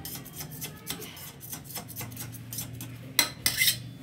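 A knife scraping and clicking against the inside rim of a metal bowl as it loosens set kalakand from the sides, with a few louder knocks about three seconds in.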